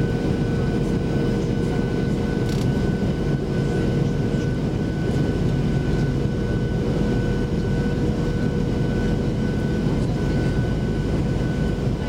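Steady cabin noise inside a Boeing 737-700 on its landing approach: the rush of air and the drone of its CFM56-7B turbofan engines, with two steady whining tones, one low and one higher.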